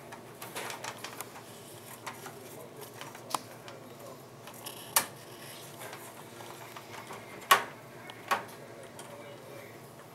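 Screwdriver driving motherboard screws into a computer case: small metallic clicks and scraping, with a few sharper clicks scattered through, the loudest about seven and a half seconds in.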